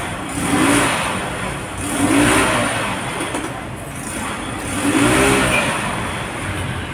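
Motor vehicle engines on a street, revving and passing in repeated swells every second or two over a steady traffic din.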